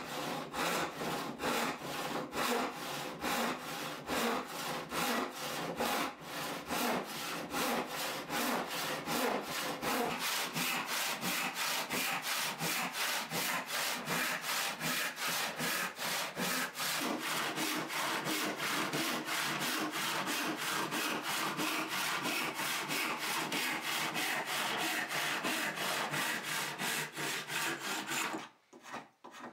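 Hand saw cutting through a wooden board: a steady run of quick back-and-forth strokes, the teeth rasping through the wood, that stops abruptly shortly before the end.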